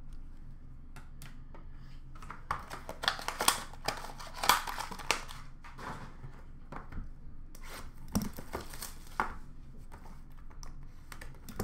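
Trading-card pack wrappers and packaging crinkling and tearing as packs are handled and opened, in two spells of rustling with a few light clicks. A low steady hum runs underneath.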